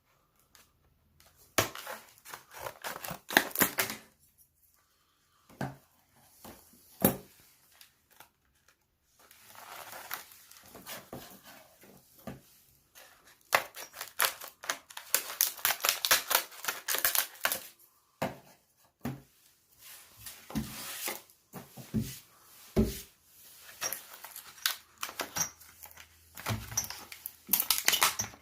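Irregular clicks, taps and rattling of objects being handled close to the microphone, coming in clusters with short pauses between them.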